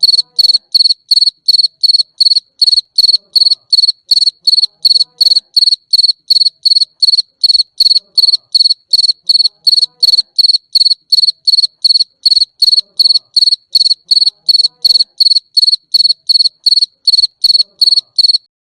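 A cricket chirping in a steady, even rhythm: short high-pitched chirps, about two and a half a second. The chirping stops abruptly near the end.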